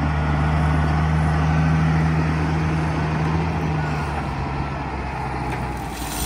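Caterpillar 966F wheel loader's diesel engine running with a steady low note, easing slightly after about four seconds.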